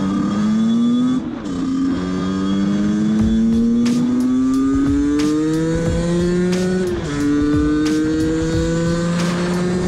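Honda CRM125's two-stroke single-cylinder engine accelerating under way, its pitch climbing steadily in each gear, with an upshift about a second in and another about seven seconds in.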